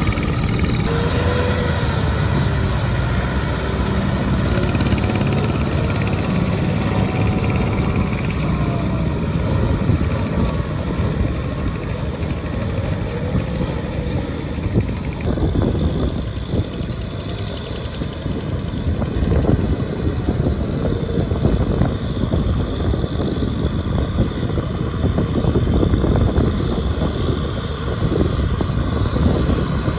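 Kubota M6040SU tractor's diesel engine running steadily under load as it drives a rotary tiller through wet paddy mud. The sound changes in character about halfway through.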